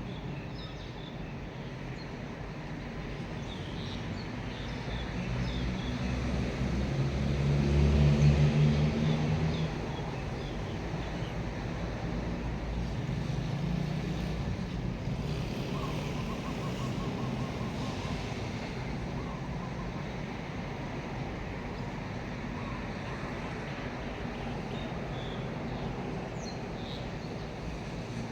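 A motor vehicle's engine passing by, rising to its loudest about eight seconds in and then fading, over steady outdoor background with faint bird chirps.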